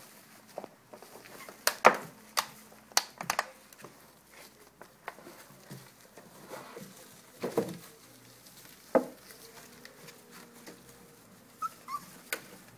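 Irregular crackling and clicking of an empty plastic water bottle and puppy pads as young puppies tumble and scramble on them, with the sharpest crackles about 2 s and 9 s in. Near the end comes a brief high puppy squeak.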